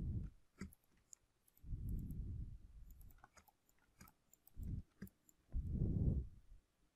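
Computer mouse clicking now and then while brush strokes are drawn, with four low, muffled puffs on the microphone, each under a second long; the puffs are the loudest sounds.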